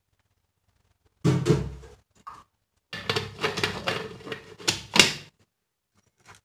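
Hard plastic parts of a hand-blender chopper being fitted together: a thump about a second in, then a run of knocks and clicks as the lid and motor unit are pressed onto the bowl, ending in a sharp click about five seconds in. The motor is not running.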